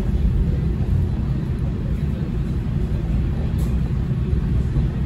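Steady low rumble of a KiHa 40 diesel railcar under way, engine and running gear heard from inside the passenger cabin.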